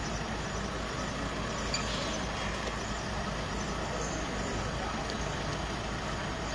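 Steady, even rumble of an ambulance engine idling, with no change in pitch or level.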